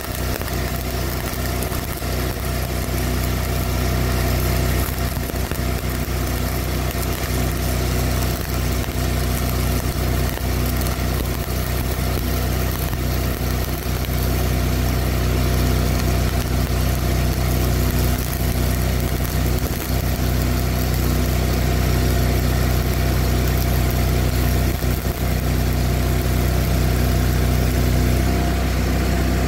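Miller Bobcat 225 engine-driven welder/generator running steadily under the load of a stick-welding arc, with the arc's crackle and hiss over the engine note.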